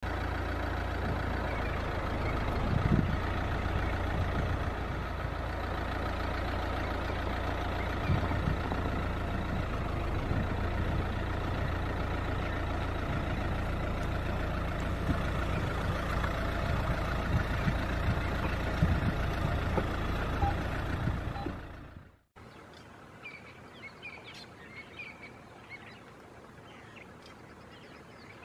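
Safari game-drive vehicle's engine running with a steady low rumble and a few knocks. It cuts off abruptly about three-quarters of the way through, leaving a much quieter background with birds chirping.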